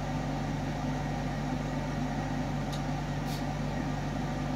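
A steady low hum with several fixed low tones, unchanging throughout, with two faint short high ticks about three seconds in.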